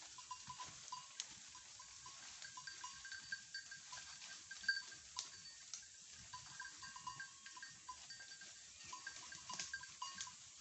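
Small bells on grazing goats jingling irregularly as the herd moves, many short ringing notes at the same few pitches, with scattered sharp clicks.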